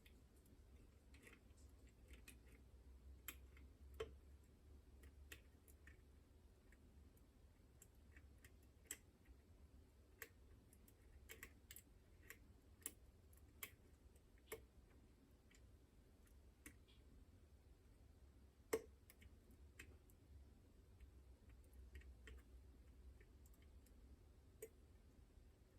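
Faint, irregular small clicks and taps of lock-picking tools working the levers of a Chubb Detector lever lock, with a sharper click about two-thirds of the way through, over a faint low hum.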